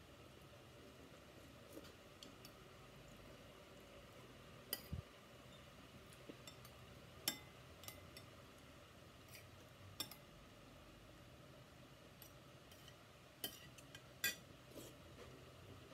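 Metal spoon and fork clinking against plates and dishes now and then, about a dozen sharp clicks at uneven intervals over a quiet room.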